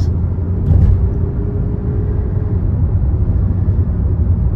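Steady low rumble of a Kia Soul being driven, heard from inside the cabin: engine and road noise, with a brief bump about a second in. The engine has an intermittent misfire under load, which the driver thinks is still happening after new ignition coils on cylinders 1 and 2.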